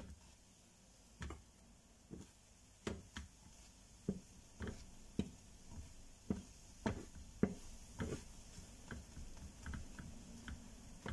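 Light, irregular clicks and taps of a plastic spatula against a small non-stick frying pan as it presses and nudges a cooking pancake, about one or two a second.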